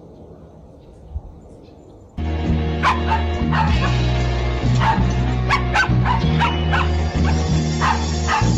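Faint background noise, then about two seconds in, loud music with a heavy steady bass and a beat starts, with a dog barking and yipping over it.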